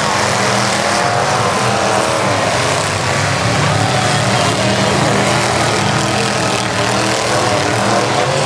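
Engines of demolition derby trucks running and revving hard as they push against each other, a loud, steady din with pitch rising and falling.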